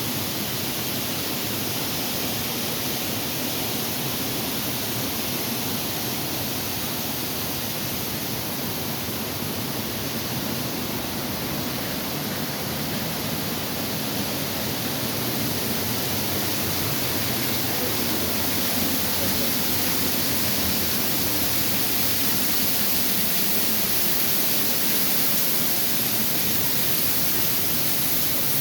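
Waterfall rushing: a steady, even wash of falling water that grows slightly louder about halfway through.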